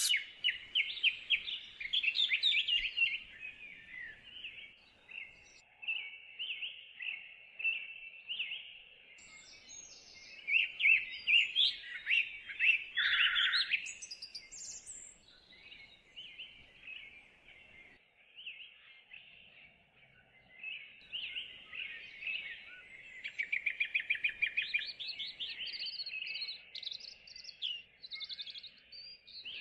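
Birds chirping and singing, in bursts of quick chirps and fast trills, loudest about ten to fourteen seconds in.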